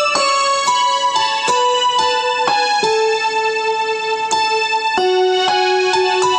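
Background music: a melody of single keyboard notes, struck about twice a second.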